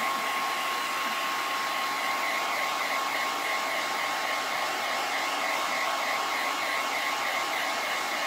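Handheld hair dryer running steadily: a rush of blown air with a thin, steady whine over it, drying the chalk-paste ink on a flour sack towel.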